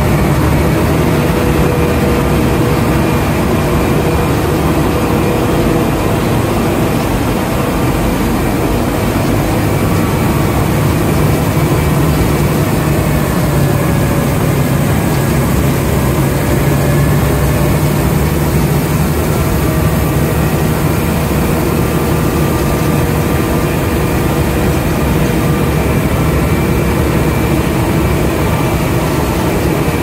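Heavy diesel road-construction machinery running steadily at a loud, even level, a low engine hum under a dense, continuous noise, with engine tones drifting slightly in pitch.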